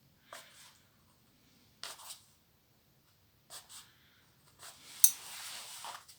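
Paper and packaging being handled as book parcels are unwrapped: several short rustles with quiet between, then a sharp click about five seconds in followed by a longer rustle.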